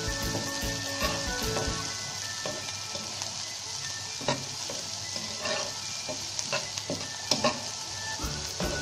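Sliced onions sizzling in hot oil in a frying pan as a spatula stirs them, with several sharp scrapes of the spatula against the pan.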